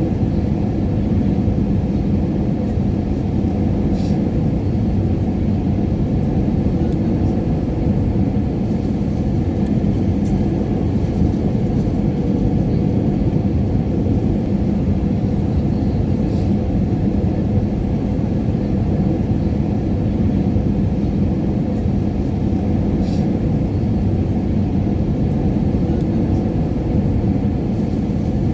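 Airliner cabin noise in flight: a steady low roar of engine and air noise with a faint hum, unchanging throughout, and a few faint ticks.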